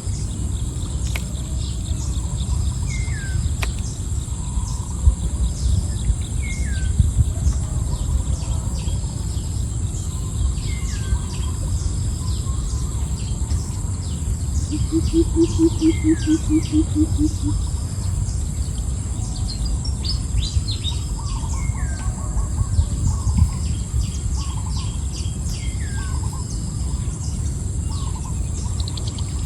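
Birds calling outdoors over a steady high insect drone: one bird repeats a short downward-sliding call about every four seconds. About halfway through comes a run of about ten low, evenly spaced notes, and later a quicker pulsed call. A steady low rumble runs beneath.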